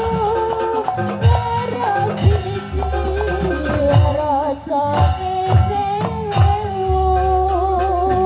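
Live Javanese gamelan music (gending) accompanying a jaranan troupe: a wavering melody over drum strokes roughly once a second and long low sustained tones.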